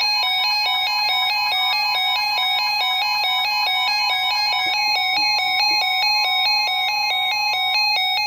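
Synthesized electronic tune of quick, evenly paced beeping notes, about four a second, with a bright ringtone-like sound.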